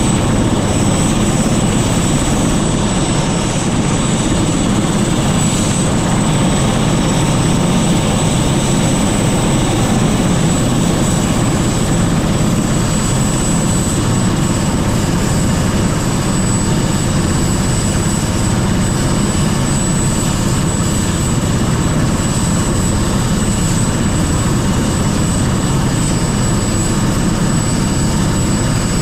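Helicopter hovering for an antenna lift: its rotor and engine make a loud, steady drone with a thin high whine on top.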